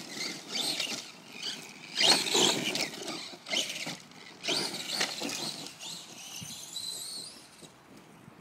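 Electric RC monster truck driven in short bursts of throttle: the motors whine and the tyres spin and spray dirt, the loudest burst about two seconds in. Near the end a rising motor whine trails off as the truck moves away.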